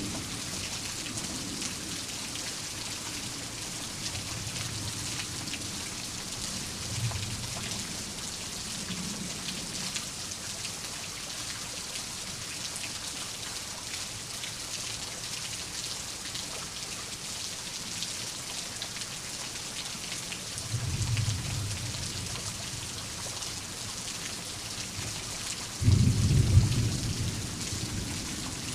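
Steady rain with thunder: a low rumble of thunder about three-quarters of the way through, then a sudden loud thunderclap near the end.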